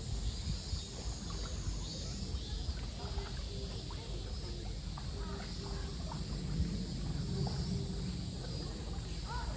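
Steady outdoor ambience: a high insect drone over a low rumble, with faint scattered chirps and voices. Light sloshing of water comes from two South American tapirs wading in a shallow pool.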